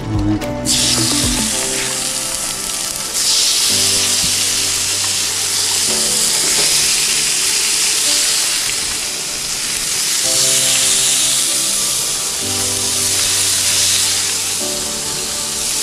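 Leopard shark steaks sizzling in olive oil on a hot griddle as they are laid down with tongs; the sizzle starts under a second in and grows louder about three seconds in. A few low knocks near the start, with background music throughout.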